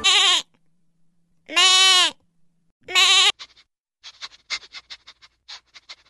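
A young goat bleating three times, each call short and quavering, about a second and a half apart. Faint, short, high squeaks follow in the second half.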